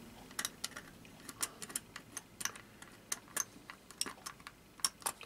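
Faint, irregular small clicks and scrapes of a hobby knife blade trimming excess plastic from the buffer beam of a plastic wagon kit.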